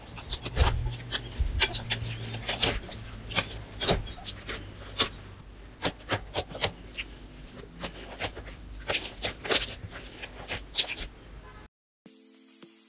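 Black slime being squeezed and kneaded by hand, giving irregular sharp pops and clicks as air pockets in it burst. The popping cuts off suddenly near the end.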